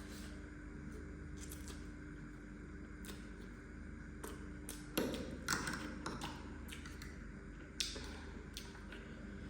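Close-up eating sounds of a person eating spicy noodles: short wet clicks and smacks of chewing, with a few louder sounds about five seconds in and again near the end.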